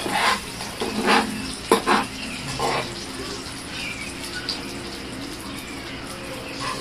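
Marinated pork slices sizzling steadily on an electric grill pan, with a few sharp clicks of metal tongs and utensils against the pan in the first three seconds.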